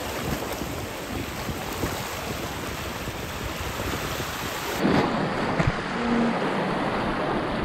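Sea water washing and lapping against a rocky shoreline, a steady rush of water. About five seconds in the sound changes and a couple of brief knocks are heard.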